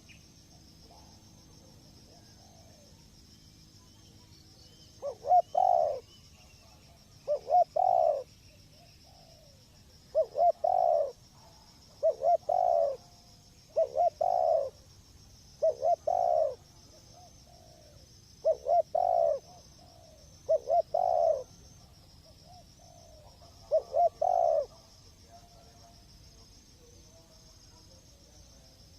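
Spotted dove (tekukur) cooing its song: a series of about nine short coo phrases, one every two seconds or so, falling quiet for the last few seconds.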